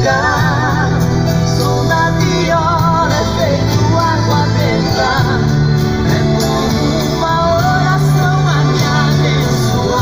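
Sertanejo song playing, with no words: a wavering lead melody with heavy vibrato over sustained low notes from the band.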